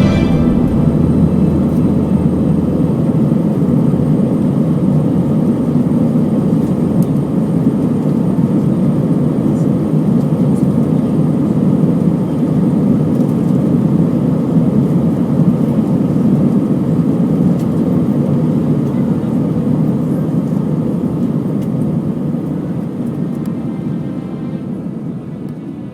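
Steady roar of an Airbus A320-232's IAE V2500 engines and airflow, heard inside the passenger cabin. It fades down near the end.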